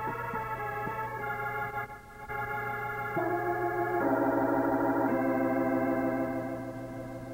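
Organ music: held chords that change every second or so, swelling louder about four seconds in and easing off near the end.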